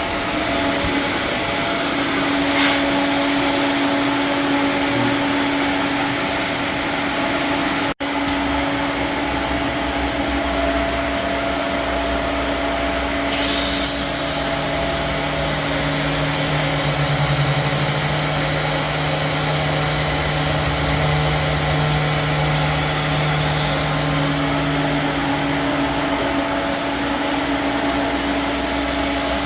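Steady machine whirring with a constant hum, like a motor running in a shop. A second, lower hum joins it from about halfway through for roughly twelve seconds.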